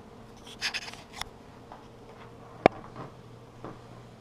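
Light handling noises: a few soft rustles and clicks, then one sharp click about two and a half seconds in, over a low steady hum.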